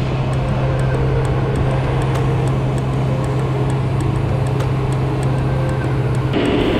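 John Deere backhoe loader's diesel engine running steadily with a low hum and faint regular ticking, about three ticks a second. Shortly before the end the sound cuts abruptly to a different, higher-pitched machine noise.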